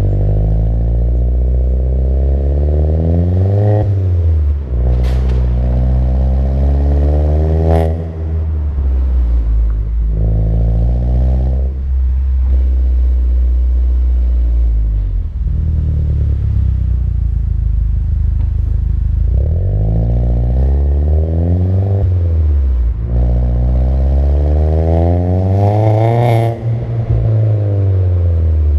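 Exhaust of an Alfa Romeo 159's 1750 TBi turbocharged four-cylinder, heard right at the tailpipe: an aftermarket downpipe, with the mid-silencer replaced by a Vibrant resonator. The engine revs up through the gears, its pitch rising and then dropping at upshifts about 4 and 8 seconds in, runs steadily for a while, then pulls hard twice more near the end. There is a brief sharp crack at some of the shifts.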